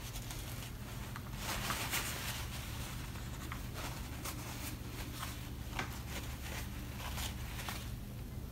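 Faint handling noises: scattered small clicks and rustles as drill gearbox parts are handled and their bushings greased by hand, with a slightly busier stretch between one and two seconds in. A steady low hum runs underneath.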